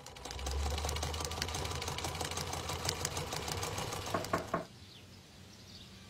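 Sewing machine running at speed and stitching, a fast run of needle clicks over a low motor hum. A few louder clicks come before it stops about four and a half seconds in.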